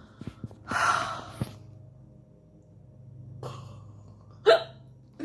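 A woman's hiccups and breathing: a sharp, hissing intake of breath about a second in, then one loud, abrupt hiccup near the end.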